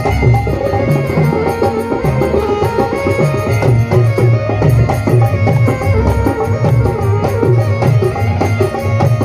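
Instrumental interlude of a Rajasthani folk bhajan: a sustained melody instrument holds steady notes over a steady beat of hand drums, played loud through a sound system.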